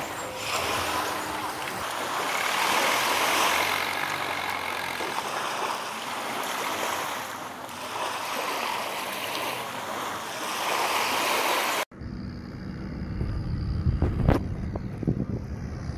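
Small waves washing onto a sandy beach, swelling and falling away every few seconds. About twelve seconds in it cuts abruptly to wind buffeting the microphone on a kayak at sea, with a few short, sharp sounds.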